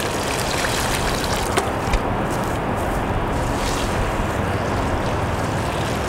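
Salted water poured from a bucket onto the ground along buried grounding rods, splashing and trickling over a steady background noise, with two light knocks about a second and a half in.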